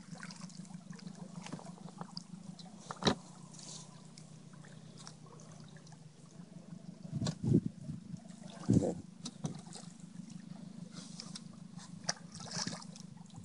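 Water trickling and sloshing around a small fishing boat over a steady low hum. There is a sharp knock about three seconds in, and two louder splashes or thumps around the middle.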